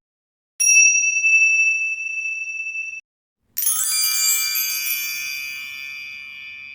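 Electronic sound effects: a steady, high-pitched beep lasting about two and a half seconds. After a brief silence comes a bright, shimmering chime that starts suddenly and slowly fades.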